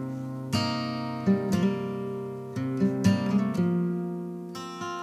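Acoustic guitar music, chords strummed and left to ring, with a new strum every half second to a second.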